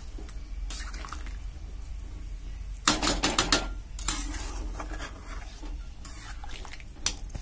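A metal spatula clinking and scraping against a kadai while stirring chicken curry. The clinks come in a quick cluster about three seconds in, with a few more just after and a couple near the end.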